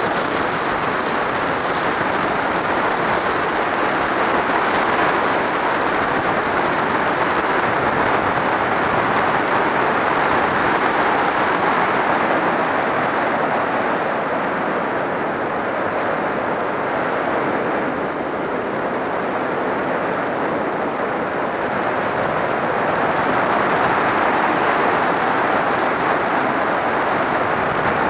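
Steady wind rush over a helmet-mounted camera on a sport motorcycle moving at road speed, with the engine buried underneath. It eases a little about two-thirds of the way through and rises again near the end.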